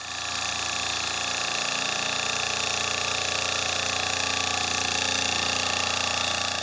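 Mini milling machine running a fly cutter across the face of a welded 1/8 in aluminium plate, skimming it flat: a steady whine made of several even tones over a hiss, rising to full level in the first half second and easing off at the end.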